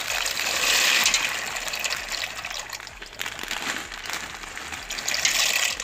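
Dry macaroni being tipped into a pot of hot water: a loud rushing, hissing water sound with fine rattling ticks, strongest about a second in and again near the end.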